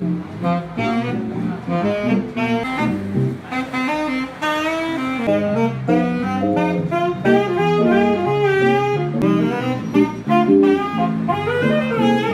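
Live jazz: a saxophone plays a flowing melody, with wavering sustained notes in the middle, over electric guitar accompaniment and low bass notes.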